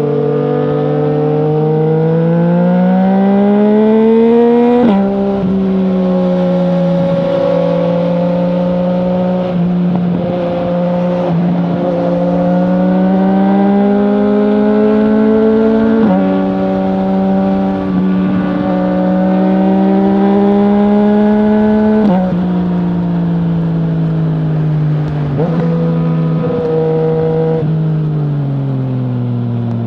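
2020 Yamaha MT-09's three-cylinder engine through an Akrapovic full-system exhaust with no dB killer, pulling under way. Its pitch climbs steadily, drops sharply at gear changes about five seconds in and again past twenty seconds, then falls away near the end as the bike slows.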